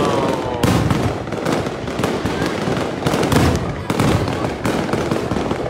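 Fireworks display: aerial shells bursting one after another, with bangs at uneven intervals over continuous crackling. A whistle falling in pitch dies away about half a second in.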